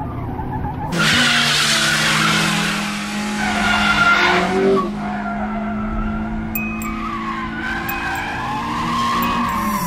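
Sports car engines held at high revs with tires squealing through a drift. The squeal starts about a second in and swells again around the middle and near the end.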